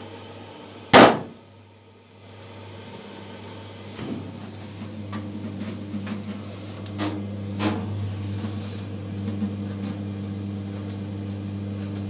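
A loud click about a second in as the timer knob of a Simpson 4 kg clothes dryer is turned, then the dryer's motor starts and runs with a steady hum, with a few knocks about four and seven seconds in. The rebuilt dryer is making an unfamiliar noise that the owner has never heard before and cannot yet identify.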